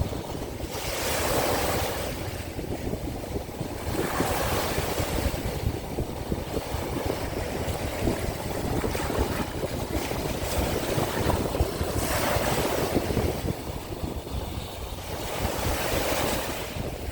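Sea waves washing onto the shore, a new surge of hiss every few seconds, over wind rumbling on the microphone.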